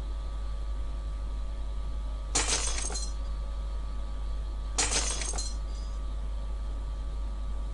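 Window glass shattering twice, about two and a half seconds apart, each a sudden crash with a brief tinkling tail. A steady low hum runs underneath.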